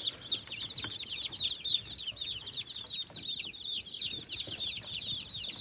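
A brood of chicks under a week old peeping without pause: many quick, high, falling chirps overlapping one another.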